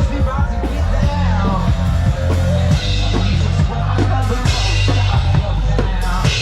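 One-man band playing a rock tune: drums and kick drum beating a steady rhythm under a low bass line and melody, all played by one performer.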